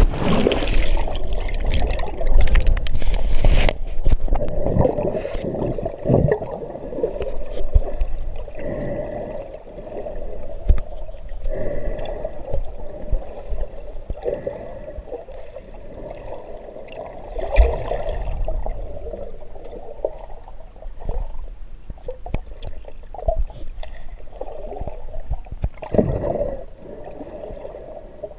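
Muffled underwater sound recorded by a GoPro Hero inside its waterproof housing, submerged in river water: a dull rushing of the water around the housing, with knocks and rubbing on the housing that are loudest and most frequent in the first four seconds, then scattered single knocks.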